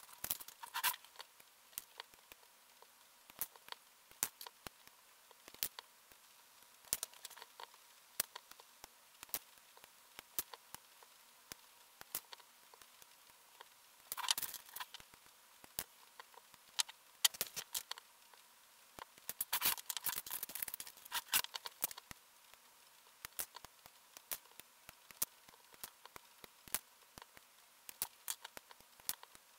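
Sharp clicks and taps of plastic model kit work: hobby nippers snipping small plastic parts and plastic pieces clicking against a plastic parts tray and wooden desk. The clicks are scattered, with busier clusters about halfway and about two-thirds through.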